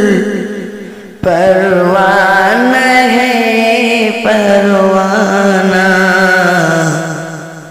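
Solo voice singing an Urdu gojol, an Islamic devotional song. One phrase fades out, then about a second in a new long, wavering line begins and fades away near the end.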